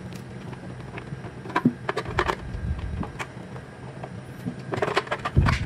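Screws being backed out of a meat slicer's metal base with a screwdriver: scattered small metallic clicks and taps, with a busier run of knocks near the end.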